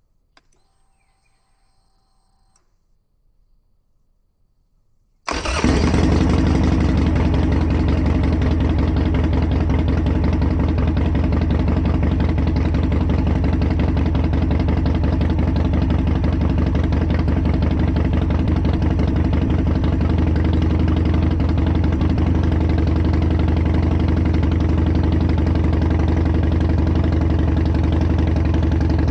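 2008 Harley-Davidson Nightster's 1200 cc air-cooled V-twin, jump-started from a portable jump pack on a dead battery, catches suddenly about five seconds in and settles into a steady idle.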